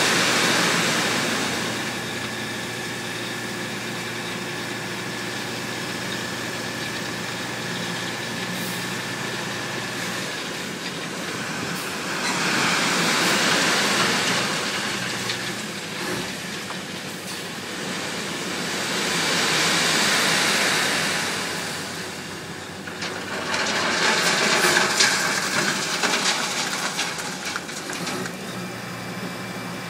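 Dump truck's engine running steadily while gravel and rubble slide out of its raised tipper bed with a rushing, rumbling hiss. The rush swells three times in the second half as the load pours out in surges.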